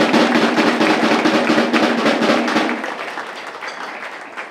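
Rapid drumming in a roll, over a steady held tone, dying away about three seconds in.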